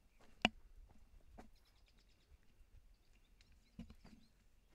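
Footsteps on a rocky, gravelly trail: a few irregular sharp crunches and knocks, the loudest about half a second in, with faint bird chirps in the background.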